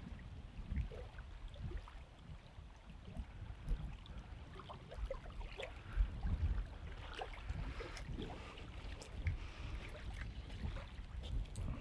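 Wind gusting on the microphone in an irregular low rumble, with faint scattered clicks over it.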